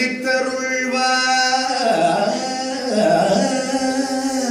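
Carnatic vocal music for Bharatanatyam dance: a voice singing long held notes that slide down and back up between pitches, over a steady musical accompaniment.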